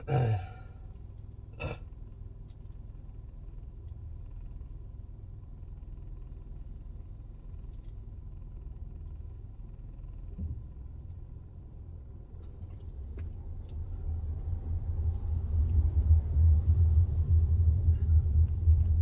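Low engine and road rumble heard from inside a car's cabin while driving in city traffic, growing clearly louder about two-thirds of the way through as the car picks up speed. A couple of short knocks near the start.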